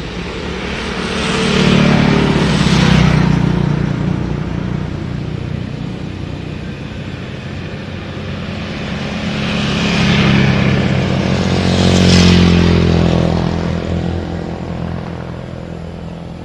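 A motorcycle passes close by about two seconds in, and another road vehicle passes around ten to twelve seconds in. Each engine swells to a peak and fades away, over a steady low engine drone.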